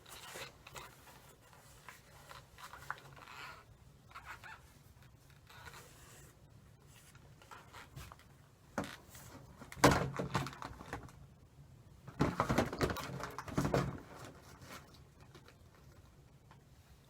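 Handling noises while baby powder is cleaned off a hairdryer: scattered light clicks and rustles, a sharp knock about ten seconds in, and a louder rustling, scraping stretch of a second or two a little later.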